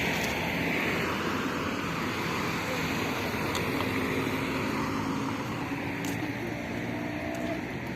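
Steady road and engine noise of a car on the move, with faint steady tones joining about halfway through.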